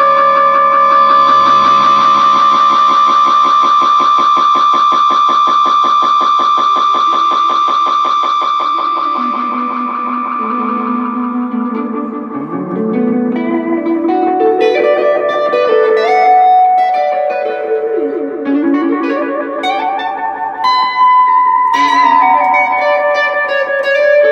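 Semi-hollow electric guitar through a TC Electronic Echobrain analog delay with the repeats turned up high, so that the delay builds into a sustained, pulsing tone close to self-oscillation that fades out over about ten seconds. Then the guitar plays runs of notes, each trailed by short, swirly delay repeats.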